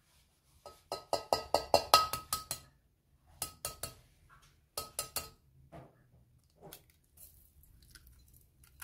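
An egg tapped against a stainless steel pan to crack it: a quick run of about a dozen sharp taps, then two short runs of three and four, each tap with a light metallic ring, followed by faint crackles as the shell is pulled apart.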